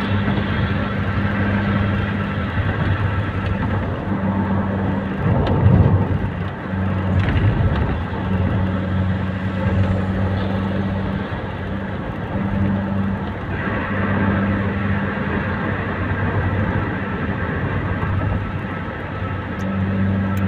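Road noise inside a car driving on a concrete highway: a steady drone of tyres and engine, with a brief louder swell about five to six seconds in.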